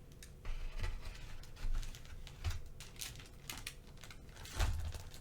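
Cookie packaging being handled: a run of crinkles and sharp clicks, with a heavier knock near the end.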